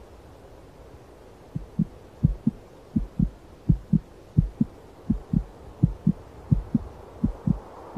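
Heartbeat: pairs of low lub-dub thumps, about 85 a minute, starting about a second and a half in over a faint low hum.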